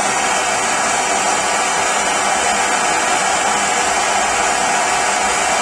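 Gas blowtorch burning with a loud, steady rush, heating a 22 mm copper pipe and Yorkshire fitting until the solder ring inside melts.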